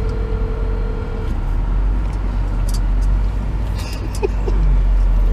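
A phone's ringback tone gives one steady two-second ring and starts ringing again near the end. Under it runs the low, steady rumble of a car idling.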